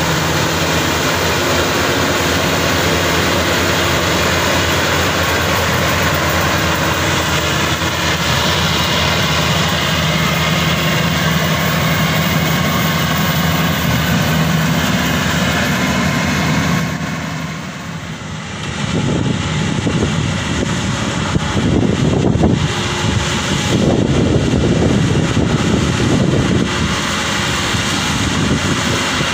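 Maxxi Bimo Xtreme 2.0 L combine harvester running steadily while it cuts and threshes rice: its engine and threshing drum hum evenly. About two-thirds of the way through, the sound dips briefly, then turns rougher, with uneven low surges.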